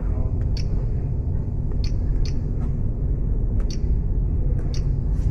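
HP Color LaserJet E67660 laser printer running a test print: a steady low mechanical running sound with a few light clicks at irregular intervals. It runs without the rattling that a crooked Tray 2 roller had been causing.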